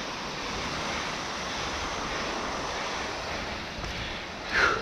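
Surf washing onto a sandy beach, a steady rushing sound. Near the end comes one short, loud call, falling in pitch, from the Cape fur seal held under the net.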